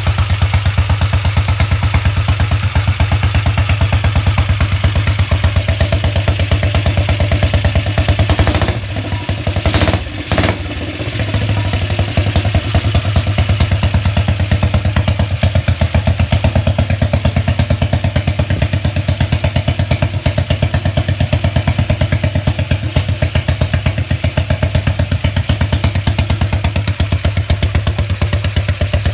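BSA Gold Star 500's single-cylinder four-stroke engine running on its first run after restoration, with a steady rapid exhaust beat. About nine seconds in it goes briefly quieter for a couple of seconds, then comes back to the same steady beat.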